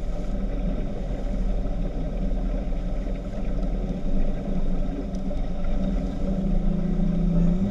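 Speedboat engine running steadily with a low drone; the engine note grows stronger near the end.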